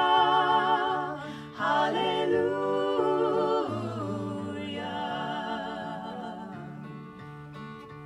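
Three women's voices singing in close harmony with vibrato over an acoustic guitar. The voices hold long notes and fade away through the second half, leaving the guitar playing on alone near the end.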